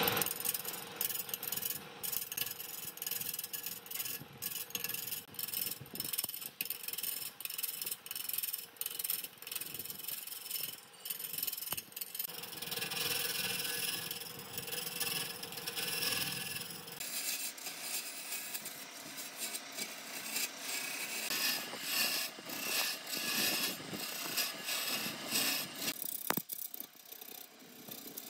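A tool scraping and rasping against wood in repeated, irregular strokes; the sound changes character about two-thirds of the way through.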